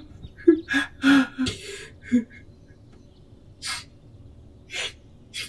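A person crying: a few short, catching sobs and gasps in the first two seconds, then two or three brief, sharp breaths.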